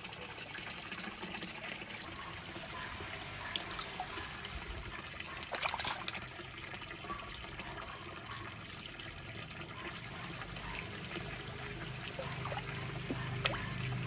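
A steady stream of water pouring from a bamboo spout into a cement pond, splashing and bubbling on the surface, with a brief louder patch of splashing about six seconds in.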